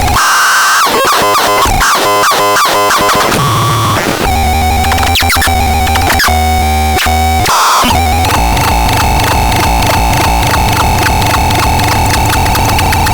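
Synthesizer making harsh, noisy electronic tones: quick falling pitch sweeps for the first few seconds, then buzzing sustained tones that change about four and eight seconds in, ending in a steady drone with a fast pulsing beat.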